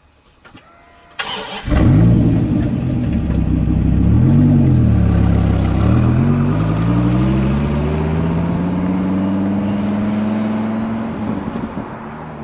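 Dodge Viper's V10 engine cranking and catching loudly about two seconds in, revved once, then pulling away with its pitch climbing steadily as it accelerates off and slowly fades.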